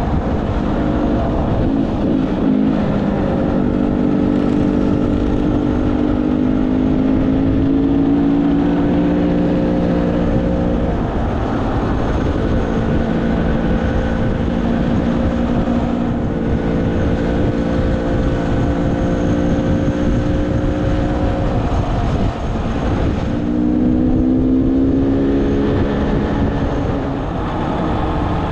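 Dirt bike engine running at speed on a gravel road, its pitch climbing slowly and dropping twice with throttle and gear changes, over steady wind and tyre noise.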